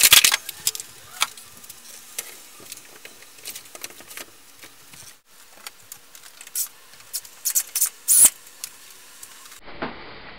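Hands-on building work: scattered sharp clicks, knocks and scrapes of parts being handled and fitted. The loudest clusters come right at the start and again about eight seconds in. Shortly before the end they give way to a duller, steady hiss.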